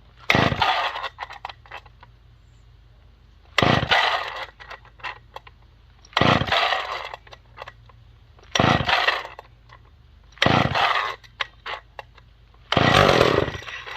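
McCulloch Mac 510 two-stroke chainsaw being pull-started with the decompression valve open: about six hard pulls on the starter cord, each spinning the engine over with a rasping burst and a rattle, without it starting.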